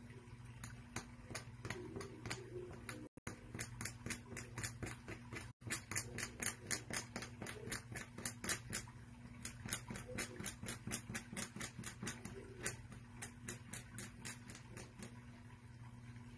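Quick scratching strokes of a small pointed hand tool raking the edge of a cloth square to fray it, about four or five strokes a second, louder in the middle. A faint steady hum runs underneath.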